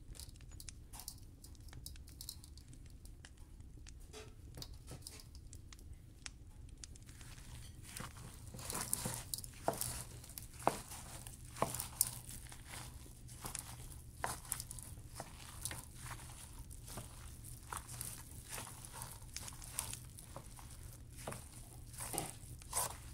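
Ground meat being worked by hand in a stainless steel bowl: quiet wet squishing with small clicks, sparse at first while the spice is poured on, then busier and louder from about eight seconds in as the spice is mixed through.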